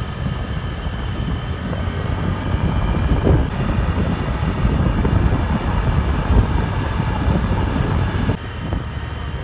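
A moving vehicle's steady road and engine rumble, with wind noise on the microphone. The sound shifts abruptly about three and a half seconds in and again near the end.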